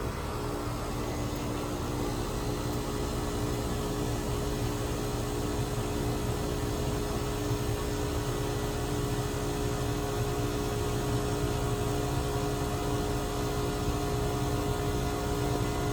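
1989 Carrier TECH 2000 heat pump outdoor unit running steadily, a constant machine hum with a few steady tones over a rushing noise; a higher tone joins about eleven seconds in.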